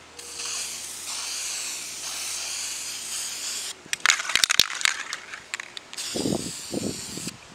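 Aerosol spray paint can spraying a coat of paint: one long spray of about three and a half seconds, a cluster of clicks and knocks around four seconds in, then a second, shorter spray near the end.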